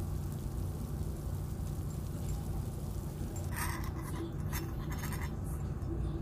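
A small metal spoon scrapes and clinks against a miniature aluminium wok for a couple of seconds, starting about three and a half seconds in, as it slides under a tiny fried egg. A steady low rumble runs underneath.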